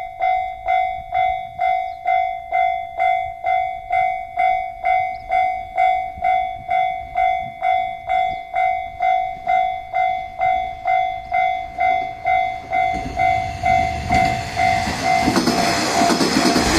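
Level-crossing warning bell dinging steadily, about one and a half strikes a second. From about two-thirds of the way in, a JR Shikoku 1200-series diesel railcar draws near and runs past, its engine and wheels growing louder over the bell until the end.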